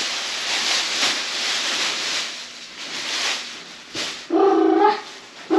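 Clothes and a plastic garbage bag rustling as things are bundled and stuffed away. About four seconds in comes a short, loud, held voice-like call on a steady pitch.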